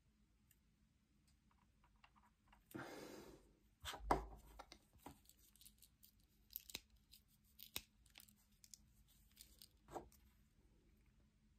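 Quiet handling of a multi-blade pocket knife being oiled: a short rustle, a knock about 4 seconds in, then light metallic clicks as its blades and tools are worked open and shut to spread the oil into the pivots.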